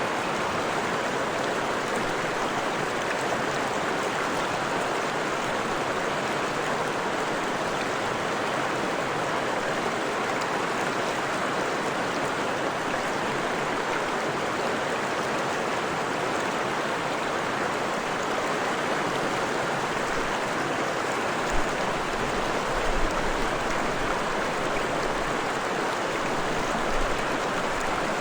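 Forest stream flowing: a steady, even rush of water. In the last third a low rumble comes in, with a few brief bumps.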